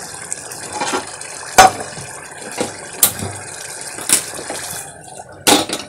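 Onions in water boiling hard in an open aluminium pressure cooker: a steady bubbling, broken by a few sharp clicks or pops. The bubbling drops away near the end, just before a loud clank.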